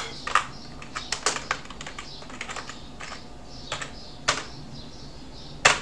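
Typing on a computer keyboard: irregular key clicks, with one louder keystroke near the end.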